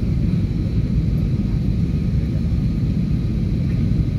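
Steady low rumble of a passenger airplane's cabin noise, heard from inside the cabin as the plane descends on its landing approach.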